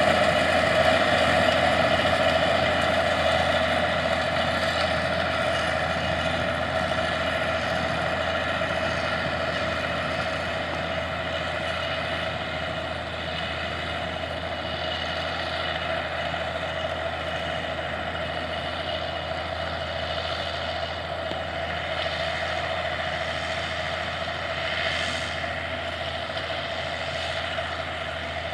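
Allis-Chalmers 200 tractor's six-cylinder diesel engine running steadily under load while pulling a tandem disc through the soil. It fades over the first dozen seconds as the tractor pulls away, then holds steady.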